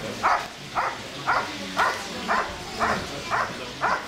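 German Shepherd barking steadily at a helper hidden in the blind, about two sharp barks a second in an even rhythm: the hold-and-bark of IGP protection work.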